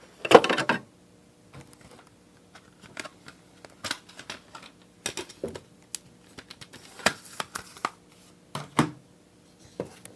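Plastic CD jewel case being handled, opened and snapped shut. A loud cluster of clicks comes just after the start, then scattered plastic clicks and light rattles, with further clusters of snaps about seven and nine seconds in.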